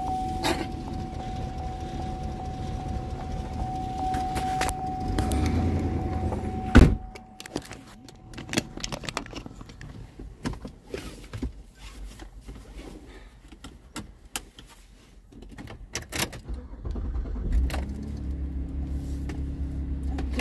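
Car interior: the engine running with a steady high tone over it, a sharp knock about seven seconds in, then a quieter stretch of small clicks and rattles until the low engine rumble comes back near the end.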